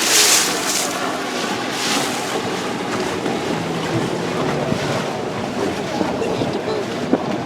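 Water rushing and wind noise aboard a moving boat, a steady hiss with stronger surges in the first second.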